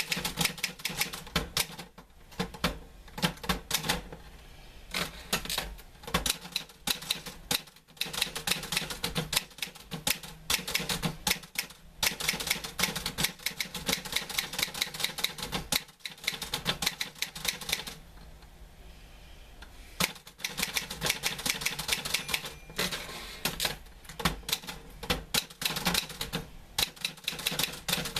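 Typewriter keys striking in quick runs of keystrokes, with short pauses between runs and a longer lull about two-thirds of the way through before the typing resumes.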